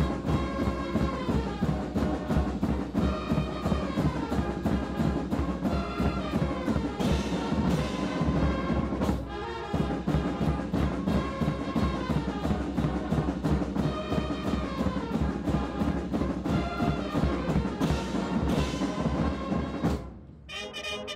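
Military brass band playing a quick march, with brass carrying the tune over a steady bass-drum march beat. Near the end the music breaks off briefly and the brass comes back on held notes.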